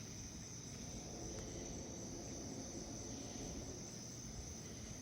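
Crickets chirping in a steady high trill, over a continuous low rumble.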